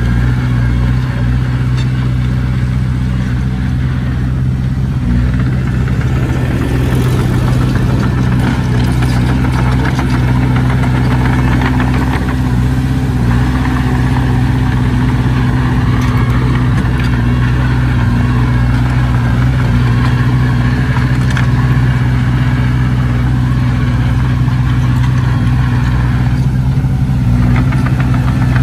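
Diesel engine of a heavy earthmoving machine running steadily, a deep, even engine note that barely changes.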